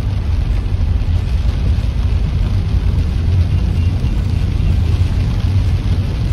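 Car driving through heavy rain on a flooded road, heard from inside the cabin: a steady low rumble of engine and tyres with an even hiss of rain over it.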